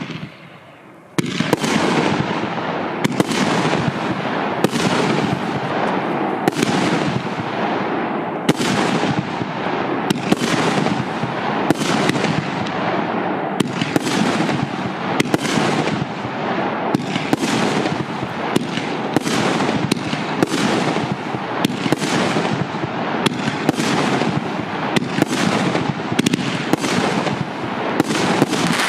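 A 19-shot, 50 mm consumer firework battery (cake) firing shot after shot: a steady series of bangs about one every second or so as the shells lift and burst overhead, over a continuous crackle and hiss. After a quieter first second, the shots run on without a break.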